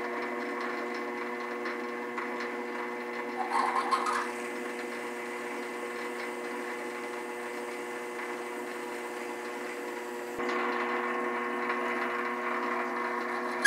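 Benchtop lathe running with a steady motor whine while a cheap 8 mm H7 reamer cuts through a pre-drilled hole in a steel round bar. A brief rising squeal comes about four seconds in; about ten seconds in there is a click, and the run turns slightly louder and brighter.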